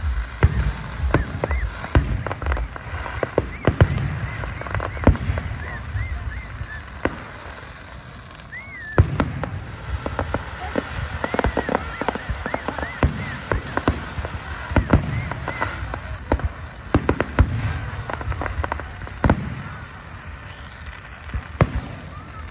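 Fireworks going off in quick succession: many sharp bangs and crackles over low booms, with short high whistling tones among them.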